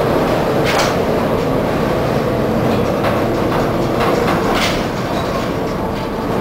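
Steady loud rumble and hum inside a ship rolling heavily in a storm, with two brief sharp clatters, about a second in and again past four seconds.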